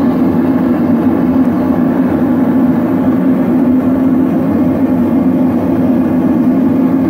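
Gas forge burner running steadily: a loud, even rushing noise with a low hum underneath, as the forge holds a blade at heat-treating temperature.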